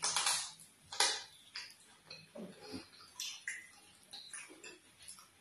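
Close-miked wet eating sounds of fufu and vegetable soup eaten by hand: a string of short mouth smacks and clicks, loudest at the start and again about a second in.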